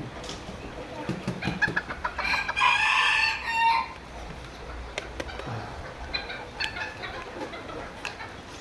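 A rooster crows once, about two and a half seconds in, for about a second and a half, with a few short clicks before and after.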